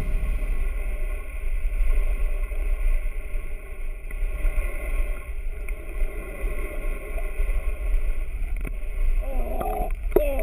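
Muffled sound of water from a camera held underwater: a steady low rumble with a faint steady hum. Wavering, voice-like sounds come in near the end.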